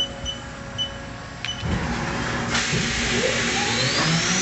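CNC milling machine starting its program: a few short beeps, a click about a second and a half in, then a steady rushing noise starts and the spindle's whine rises in pitch as it spins up toward 12,000 RPM.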